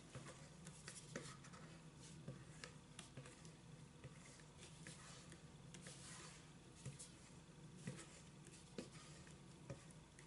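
Faint scraping and light scattered taps of a wooden spatula against a stainless steel mixing bowl as thick cream is scraped out of it.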